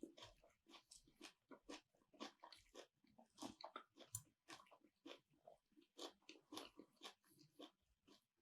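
Close-miked chewing: quiet, irregular crunches of fresh salad vegetables being bitten and chewed, several a second.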